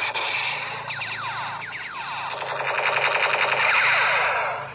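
Electronic toy sniper rifle playing its gunfire sound effect. It is a harsh rattling burst with a run of quick falling 'pew' sweeps, then a fast even rattle that stops suddenly near the end.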